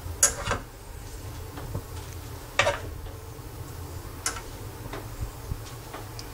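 Metal kitchen tongs clinking against a frying pan as pieces of meat are lifted out one at a time: three sharp clinks about two seconds apart with a few fainter ticks between, over a low steady hum.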